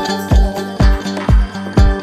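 House-style electronic dance music from a DJ mix: a steady four-on-the-floor kick drum about twice a second under sustained melodic tones.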